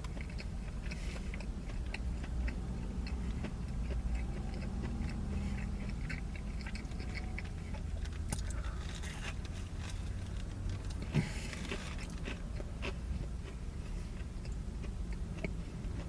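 A person chewing and biting crispy fried chicken sandwich, with small crunches and crackles, over a steady low rumble of highway traffic heard through closed car windows. One sharp click stands out about eleven seconds in.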